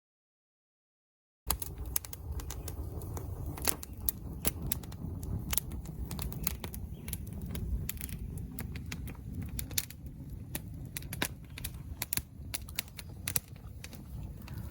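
Crackling and popping from campfire cooking: many irregular sharp pops over a steady low rumble. It starts suddenly about a second and a half in, after a moment of silence.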